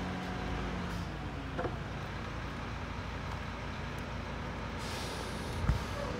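Mack LEU garbage truck running down the street, a steady low engine rumble, with a hiss of air about five seconds in and a single sharp thump near the end.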